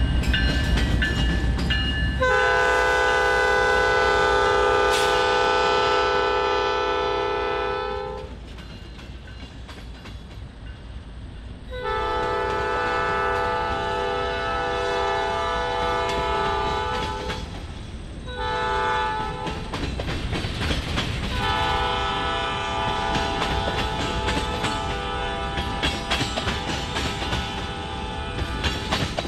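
Air horn of a CN GE ES44DC freight locomotive blowing the grade-crossing signal, long, long, short, long, the standard warning for a public road crossing. Under it is the low rumble of the passing diesels, then the rhythmic clatter of freight car wheels rolling over rail joints.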